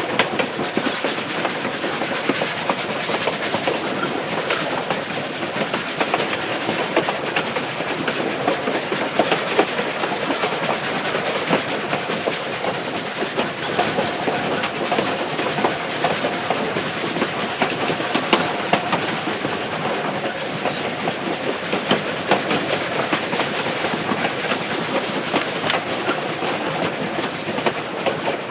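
Train in motion: a steady rumble and rattle of the cars, with a dense run of clicks and clatter from the wheels on the track.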